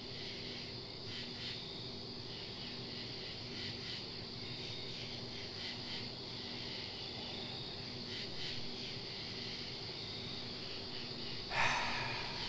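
Crickets chirping steadily over a faint low hum, with a short, louder noise near the end.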